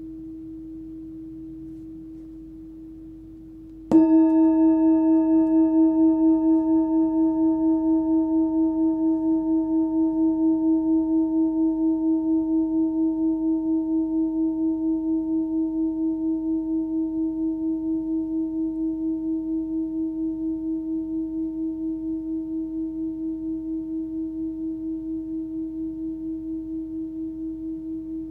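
Full Moon singing bowl, tuned to about 320 Hz (between D# and E), struck once about four seconds in while the last note is still fading. It rings with a strong low tone and a few higher overtones. The highest overtones die away within a few seconds, while the low tone hums on with a slow, even pulsing and gradually fades.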